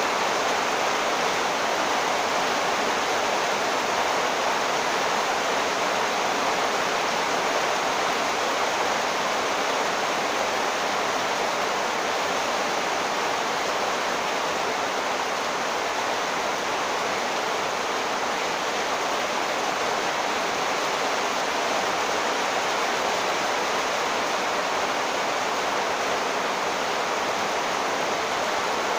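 Heavy rain pouring steadily onto a flooded street, an even, unbroken hiss.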